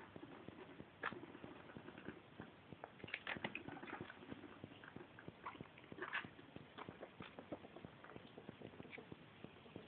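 Pet rats scrabbling at a small plastic pool of water as they forage in it: faint, irregular taps and patter of paws and claws on plastic, with a few louder scuffs or splashes about a second in, around three seconds in and around six seconds in.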